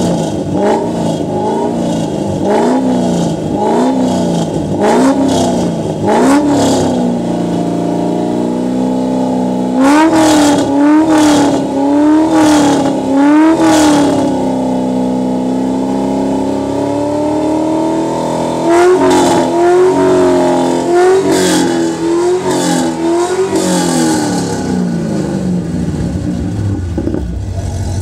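A C6 Corvette's LS2 V8 barks out through its quad-tip exhaust in a series of short throttle blips. Each blip sends the pitch up and straight back down, and the engine settles into a lumpy idle in between. The blips come in clusters over the first seven seconds, again from about ten to fourteen seconds, and again around nineteen to twenty-four seconds, with steady idle between the clusters and toward the end.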